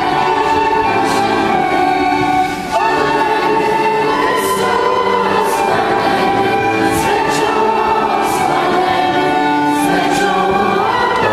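Children's choir singing in unison with instrumental accompaniment, a sustained, steady song.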